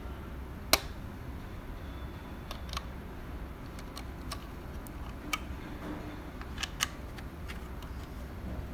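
Scattered light clicks and taps as the parts of a switch panel kit are handled and picked up. The sharpest click comes about a second in, over a low steady hum.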